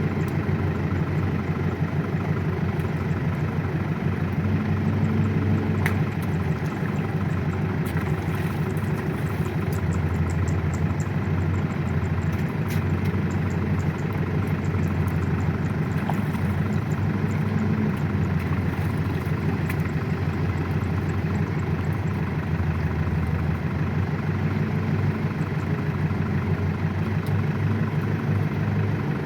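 Tractor engine running steadily at an even speed, a dense low mechanical hum, with a few faint clicks and rattles over it.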